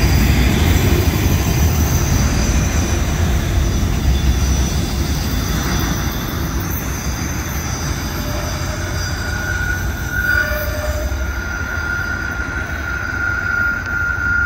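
Autorack freight cars rolling past on the rails, a steady low rumble of wheels that slowly fades as the end of the train pulls away. Steady high-pitched wheel squeal rides over it, and a clearer squealing tone comes in past the middle.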